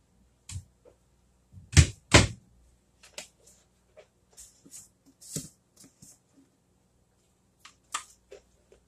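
Kitchen handling noises: two loud knocks close together about two seconds in, then a scattering of lighter clicks and clatters as a tall plastic canister is picked up and handled.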